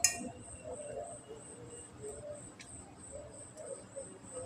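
Metal spoon clinking and scraping on a white plate of rice while eating: one sharp clink right at the start, then a few faint taps.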